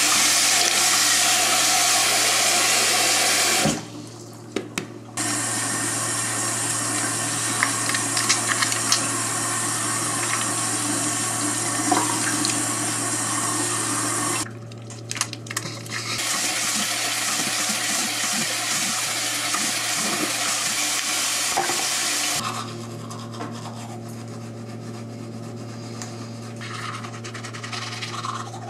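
Bathroom sink tap running water in three spells, cut off briefly about 4 and 15 seconds in, during face washing. The water stops for good about 22 seconds in, leaving a steady low hum.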